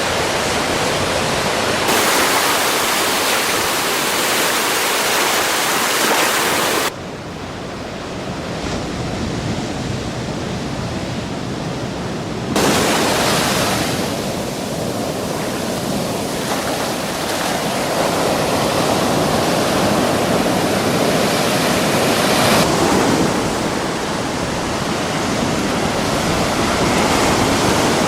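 Sea surf: waves breaking and washing on the shore as a dense rushing noise, with several sudden changes in level and tone where the recording cuts between takes.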